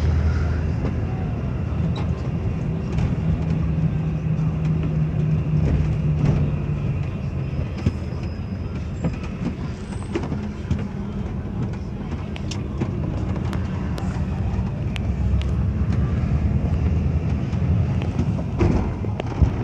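Bus running noise heard from inside the cabin: a steady low engine drone with road noise, and scattered light clicks and rattles. The engine tone stands out for a few seconds in the first third, and there is a sharper knock near the end.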